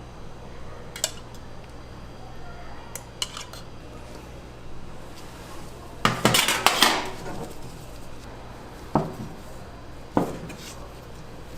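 Dishes and metal utensils clattering: a few separate knocks, with a longer burst of rapid clatter about six seconds in, over a steady low hum.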